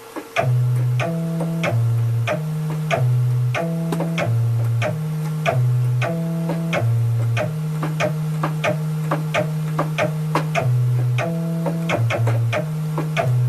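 Fruity DX10 FM software synthesizer played live from a MIDI keyboard: a plucked, guitar-like bass line stepping between a few low notes. A steady run of sharp ticks, about three a second, runs under the notes.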